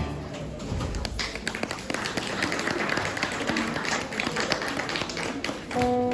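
A small audience clapping after a song, many quick claps merging into a steady patter. Near the end a held keyboard note begins.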